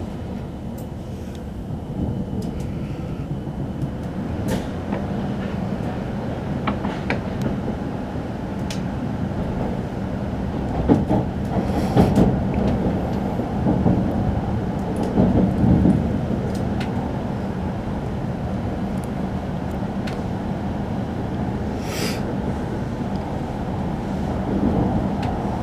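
Shinkansen train sound: a steady low rumble with a faint hum, broken by scattered clicks and a few louder knocks.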